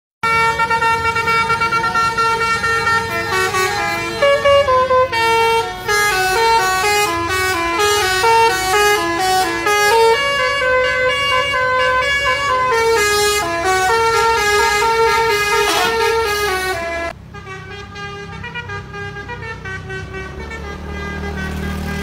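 Basuri V3 'telolet' multi-tone bus horn playing a fast melody, its notes stepping quickly up and down. About seventeen seconds in it drops suddenly to quieter horn notes, with a low engine rumble rising near the end.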